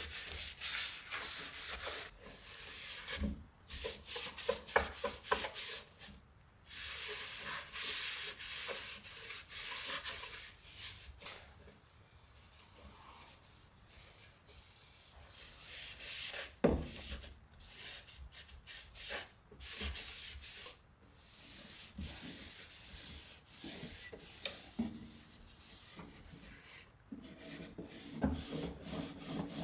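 Scouring sponge and cloth scrubbing the inside of an oven in irregular runs of back-and-forth strokes, with short pauses between runs. A single knock is heard about 17 seconds in.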